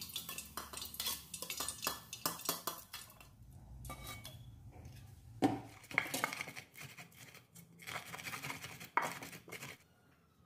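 Metal spider strainer clinking and scraping against a wok as fried food is lifted out. Then, about halfway through, a stone pestle gives one loud knock and goes on knocking and grinding chilies and garlic in a stone mortar.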